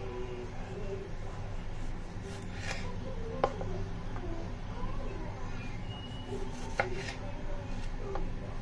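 Kitchen knife slicing a tomato on a wooden cutting board, the blade knocking sharply on the board twice, about three and a half and nearly seven seconds in, over a steady low hum.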